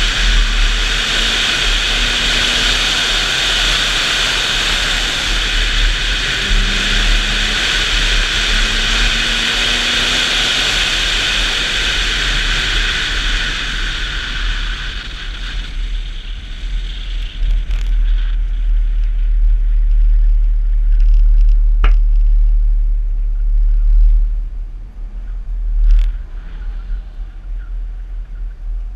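Car driving at speed with its engine revving up, under a strong hiss of wind and road noise and heavy wind rumble on the microphone. About halfway through the hiss fades as the car slows to a crawl. Wind rumble remains, with a couple of sharp clicks near the end.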